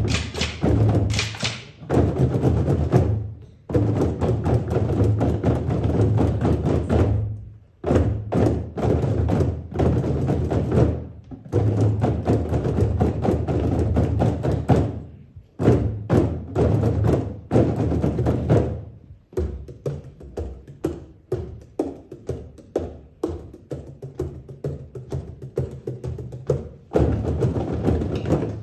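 A large ensemble of bodhráns (Irish frame drums) beating in unison, in rhythmic phrases that stop together abruptly several times. In the later part the playing thins to separate, evenly spaced strokes, and the full ensemble comes back in near the end.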